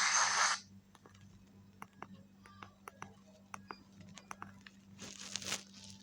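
A Strawberry ST2 feature phone's FM radio plays through its loudspeaker as hissy static and cuts off about half a second in. Faint clicks and short beeps of keypad presses follow. A brief burst of radio static comes again around five seconds in.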